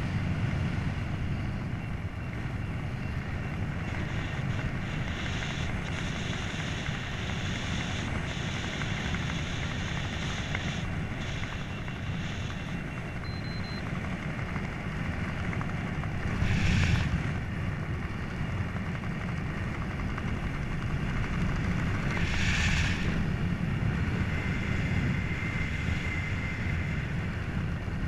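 Steady wind rushing over the camera's microphone during a parachute descent under an open canopy, with two brief louder gusts, one past the middle and one later.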